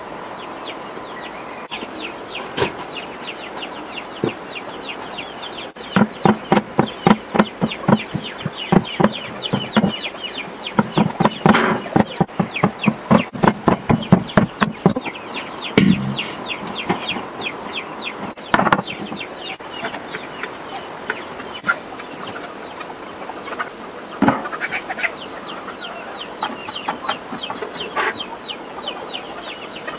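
Chickens clucking throughout. For about ten seconds in the middle comes a fast, even run of pestle strikes in a stone mortar, about three or four a second, pounding a yellow spice paste.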